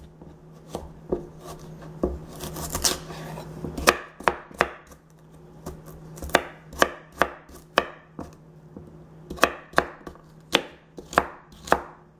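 Kitchen knife chopping carrots on a wooden cutting board: sharp knocks of the blade striking the board, in irregular runs of about two or three a second, with a short scraping, rustling stretch about two to three seconds in.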